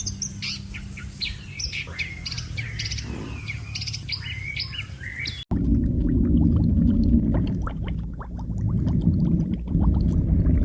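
Small birds chirping in quick, repeated calls. About five and a half seconds in it cuts suddenly to a louder low rumble with fainter chirps still going on.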